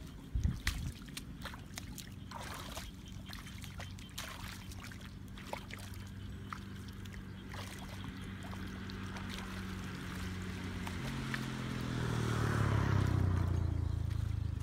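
A small engine hums steadily, shifting pitch about eleven seconds in and growing louder near the end, while water splashes and trickles with scattered clicks; a louder splash or knock comes about half a second in.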